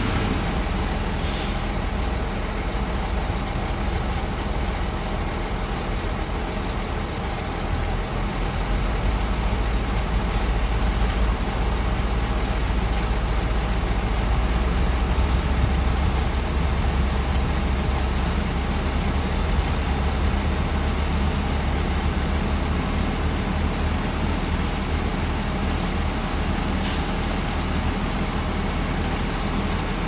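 Dongfeng Tianlong dump truck's diesel engine running as the truck moves over sand and then tips its bed to unload, the engine swelling louder from about 8 s for several seconds. Brief hisses of air, one about a second and a half in and another near the end.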